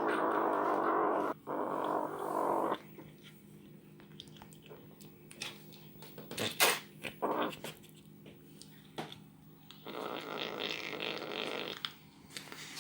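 Kitten growling while eating, a rasping growl for nearly three seconds, then scattered small clicks, and a second growl from about ten seconds in.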